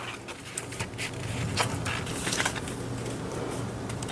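Hands pressing and smoothing a clear self-adhesive laminate film down onto a sticker sheet: soft rubbing of the plastic, with a few small crackles in the first couple of seconds. A low steady hum sits underneath from about a second in.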